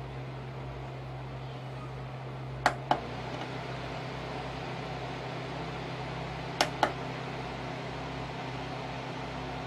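Cordless desk circulator fan running with a steady motor hum and rushing air. Its button gives two quick double clicks, about four seconds apart, and the hum shifts slightly after each.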